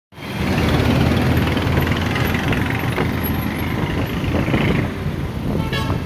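Motorcycle engine and road traffic noise while riding in city traffic, steady and loud, with a short rising horn toot near the end.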